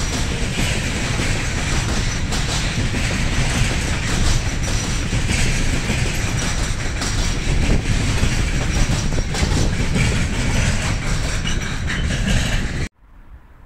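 Freight train wagons rolling past close by, wheels clattering over the rail joints in a steady, loud rumble. The sound cuts off suddenly near the end.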